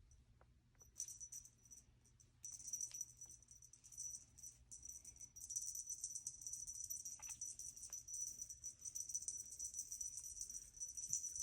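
A small bell on a kitten's toy jingling in fast, shaking bursts, with short gaps in the first couple of seconds and then almost without a break.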